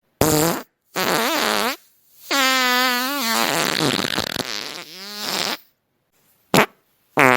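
A string of fart sounds: two short ones, then a long wavering one lasting about three seconds, then two quick short blasts near the end.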